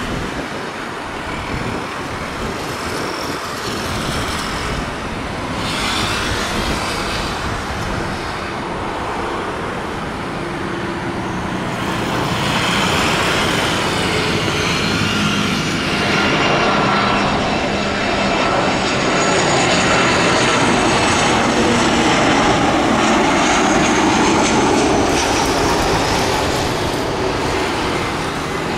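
Jet aircraft noise: a steady rush with a high whine that slowly shifts in pitch, growing louder from about halfway through and easing near the end.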